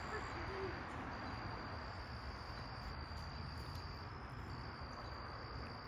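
An insect's steady, high-pitched trill, unbroken except for a brief gap about four seconds in, over a low background rumble.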